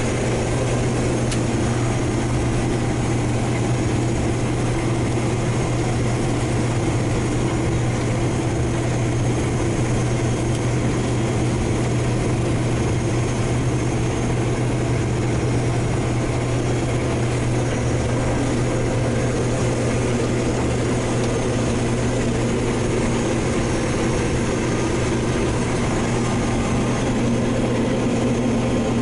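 Heavy diesel engine of harvest machinery running steadily under a constant load, a deep even hum with a broad mechanical rush over it.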